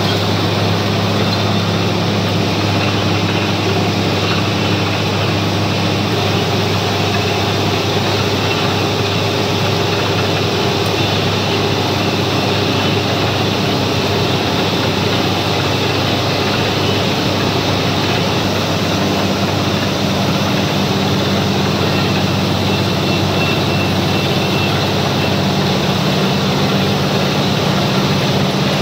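Truck-mounted borewell drilling rig running steadily, a loud, constant engine noise; its note shifts slightly about two-thirds of the way through.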